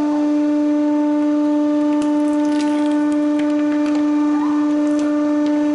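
Hydraulic press running with a loud, steady hum as its ram squashes a watermelon, with a few faint cracks from the rind giving way.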